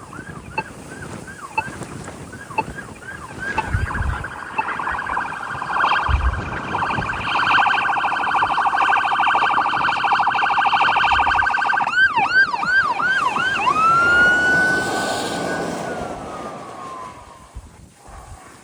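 Responding emergency vehicle's electronic siren, cycling through its tones. Rapid yelps at first, then a fast warble, then a few more yelps, and finally a long wail that winds down. It grows louder towards the middle and then fades.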